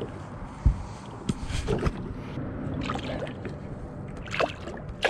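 Small splashes and sloshing of water as a smallmouth bass is lowered into the river by hand and swims off, with a dull knock about a second in.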